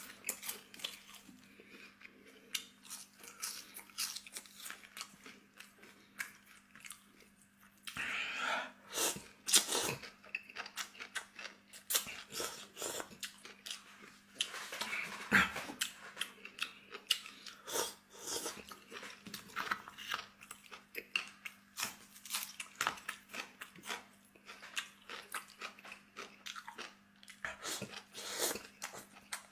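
A person eating close to the microphone: steady chewing with many short, crisp crunches, over a faint steady hum.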